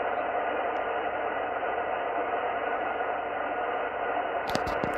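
Yaesu FT-710 transceiver on the 10-metre band giving a steady hiss of band noise on upper sideband, with no station audible: the signal it was receiving has faded out. A few sharp clicks come near the end.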